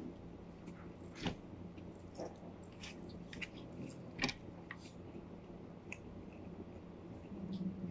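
A person chewing and eating chicken pieces by hand, with scattered wet mouth smacks and soft clicks. There is a short low hum near the end.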